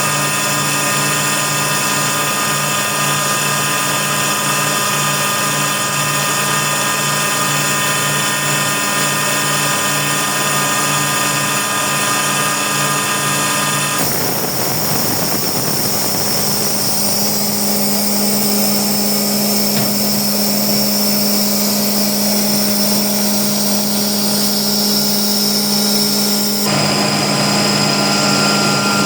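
Airhorse AHB20A air compressor running steadily with a whine of several steady tones; about halfway through the sound changes abruptly to a steady hum with a high hiss, and changes abruptly again near the end.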